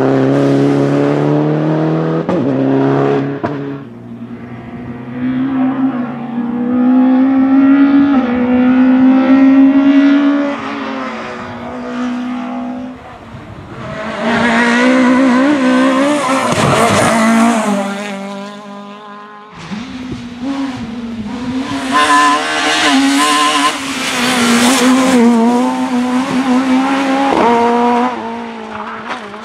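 Rally car engines at high revs on a special stage, accelerating, lifting off and changing gear through tight bends, with some tyre squeal. Several separate passes, first a Citroën DS3 R3, with the engine note jumping abruptly between them.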